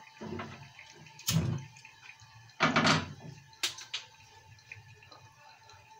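Handling noises at a gas stove as a frying pan is set on to heat oil and the burner is lit: two loud clattering noises a little over a second apart, then a sharp click.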